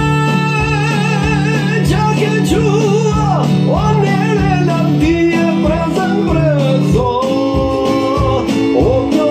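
A man singing an Albanian song through a microphone and loudspeaker, with long held notes that waver and quick ornamental turns, over a plucked-string accompaniment with a steady beat.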